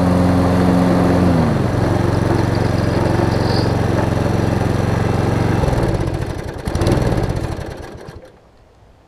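Toro Recycler push mower's small engine running steadily, its note dropping about a second and a half in, then winding down about six seconds in and coming to a stop near the end as it is shut off.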